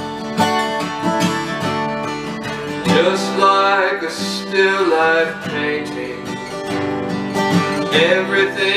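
Acoustic guitar strummed in a steady rhythm, with a man's singing voice coming in about three seconds in and returning in phrases.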